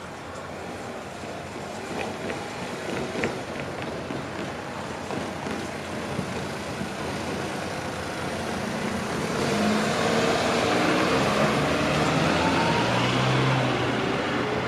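Electric passenger train running and growing steadily louder, with a low hum and a faint rising whine in the second half.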